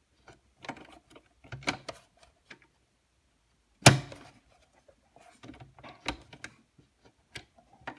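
Hands handling fabric and an elastic band on a sewing machine bed, making scattered light rustles and small clicks, with one sharp louder click about four seconds in. The machine is not stitching.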